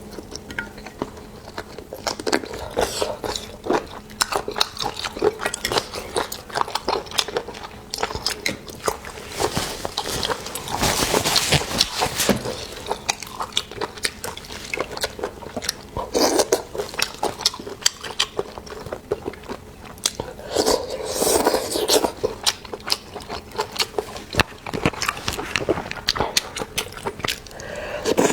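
Close-miked eating of seafood: a steady run of wet chewing and biting clicks, with a few louder, longer stretches of crunching and chewing along the way.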